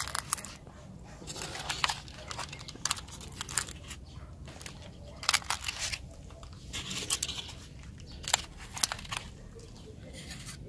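Pulp egg cartons of eggs being handled and set down on asphalt: about six short bouts of rustling and light clicking, with quiet gaps between.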